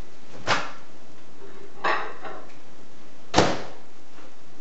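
Three separate knocks of kitchen items being handled, the second with a brief ringing clatter and the last, about three and a half seconds in, the loudest.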